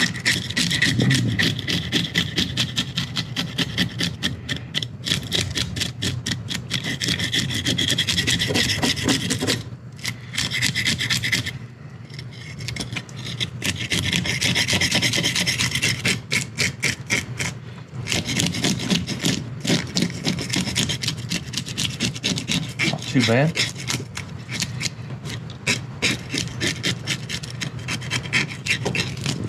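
Hand fish scaler scraping the scales off a black sea bass in quick rasping strokes, several a second, breaking off briefly twice, about ten and sixteen seconds in.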